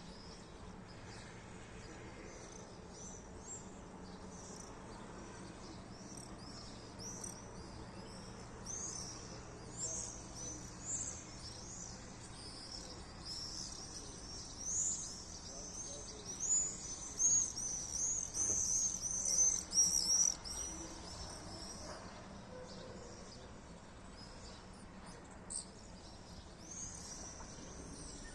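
Swallows twittering: a quick run of short, high chirps that starts sparse, is thickest about halfway through, and thins out near the end.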